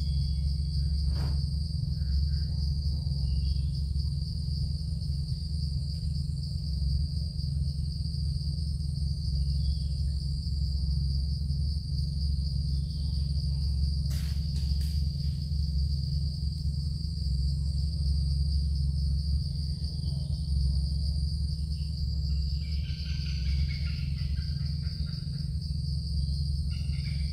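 Dusk insect chorus holding a steady high-pitched drone, over a constant low rumble. A short click comes about a second in and a brief crackle about fourteen seconds in.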